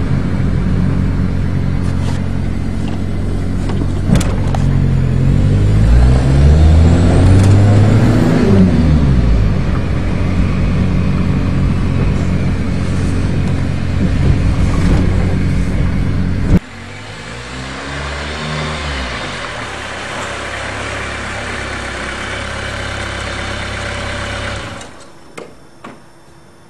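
Turbo-diesel engine of an old Dodge Caravan running while driving, heard inside the cabin; about five seconds in its pitch climbs and then falls back as the van accelerates and eases off. Later it is heard more quietly and stops near the end.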